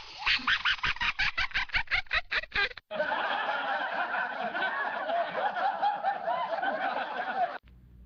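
Radio jingle sound effect: about three seconds of rapid, staccato laughter, then a dense, wavering clamour that cuts off suddenly near the end.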